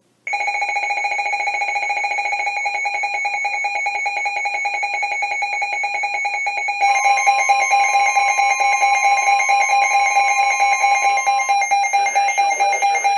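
NOAA Weather Radio emergency alert tone: a loud, steady electronic alarm of several high tones sounding at the start of a severe thunderstorm warning. About halfway through it gets louder and an extra tone joins, then drops out again near the end.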